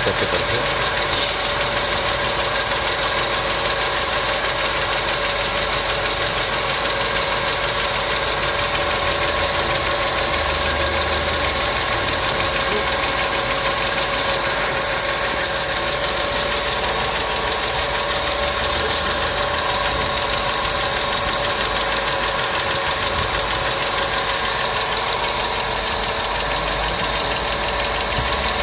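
Mercedes M111 supercharged four-cylinder engine idling steadily with a rapid, even ticking, taken for noisy hydraulic lash adjusters, though the mechanic suspects the belt tensioner.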